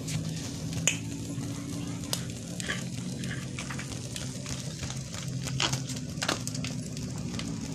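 Squid sizzling and crackling on a wire grill over glowing charcoal, with irregular sharp pops throughout and a steady low hum beneath.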